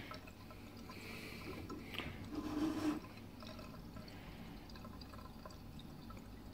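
Faint trickle of water from a 3D-printed aquarium overflow's outflow tube falling into a stainless steel sink, with a thin tap stream running into the tank: the primed siphon overflow flowing on its own, slightly louder a couple of seconds in.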